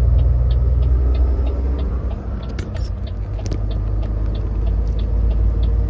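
Cab interior of a truck driving on the highway: steady low engine and road rumble, heaviest in the first two seconds, with a faint ticking repeating about three times a second.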